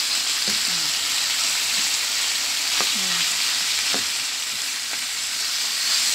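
Chicken pieces sizzling as they are sautéed and stirred with a spatula in a hot wok, a steady frying hiss.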